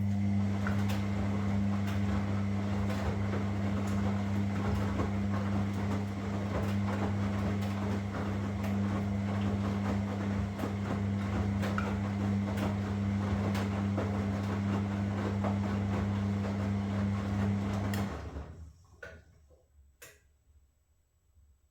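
Washing machine running with a steady low hum and a rough, clattery churn, which cuts off suddenly about eighteen seconds in. A couple of separate clicks follow.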